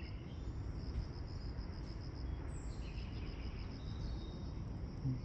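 Steady high-pitched pulsing trill from the trees, with a brief higher chirp about two and a half seconds in, over a low outdoor rumble.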